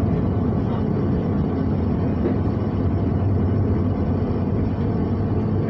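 London Underground train running, a steady low rumble heard from inside the carriage.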